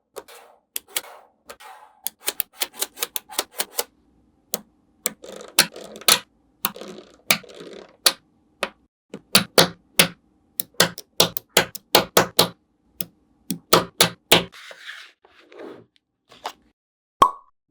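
Small magnetic balls clicking and snapping together one after another as a model is built, dozens of sharp clicks at an uneven pace with brief soft rattling or scraping between some of them.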